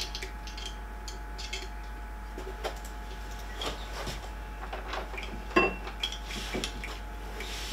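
Scattered small clicks and clinks of metal and plastic 3D printer parts being handled and fitted during assembly, with one sharp click about five and a half seconds in, over a steady low hum.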